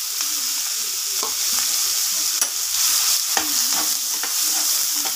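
Freshly chopped onions sizzling in hot oil in a kadai, with a steady hiss. A spatula stirring them scrapes and taps the pan about once a second.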